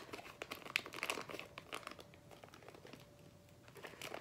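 Plastic food bag crinkling as it is handled, with dense crackles over the first couple of seconds that then thin out.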